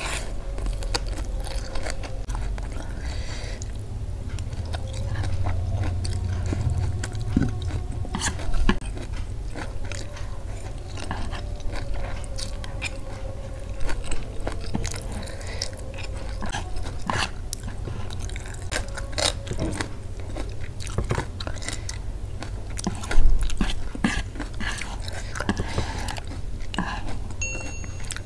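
A person chewing and biting mouthfuls of Indomie goreng fried instant noodles and leafy greens, heard as irregular clicking mouth sounds and bites.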